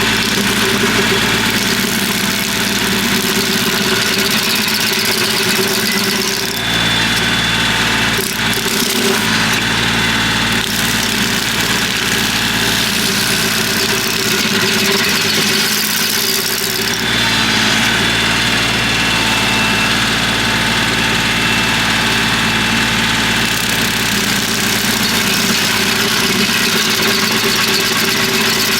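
Kioti CK3510 compact tractor's diesel engine running steadily, driving a PTO-powered MechMaxx stump grinder, with a broad hiss from the grinder that swells and eases a few times as it cuts into a stump.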